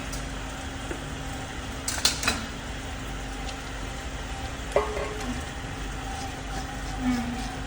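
Metal tools and engine parts clinking as the engine is assembled: two sharp clinks about two seconds in and a short ringing clink near five seconds, over a steady low hum.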